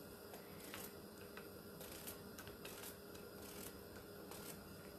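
Faint, irregular clicks of a small knife slicing through a yellow summer squash held in the hand, the slices dropping into a glass dish, over a faint steady hum.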